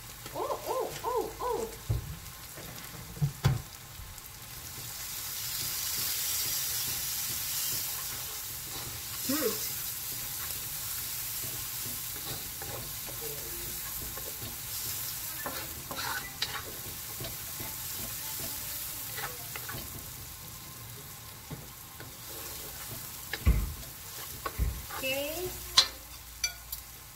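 Sliced onion, chili and garlic sizzling in hot oil in a wok while a wooden spatula stirs and scrapes them. There are occasional sharp knocks of the spatula against the wok, and the sizzle swells for a few seconds about five seconds in.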